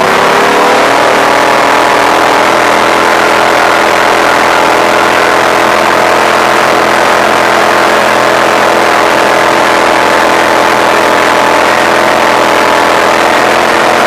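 Engine of a small six-wheel amphibious ATV heard from on board. It rises in pitch at the start, then runs steadily as the machine drives along a dirt trail.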